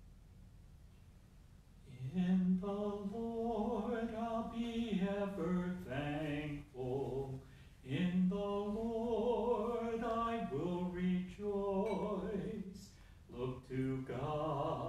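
A single male voice singing unaccompanied, starting about two seconds in, in slow phrases of long held notes with vibrato, like a chanted hymn.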